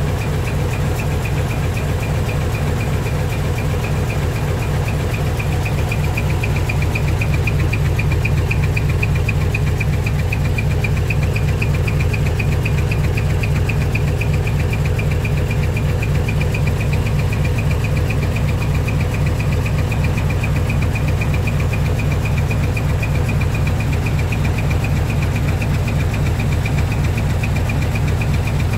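Heavy diesel truck engine idling steadily through a split exhaust manifold (mani-wari), giving a rapid, even exhaust beat.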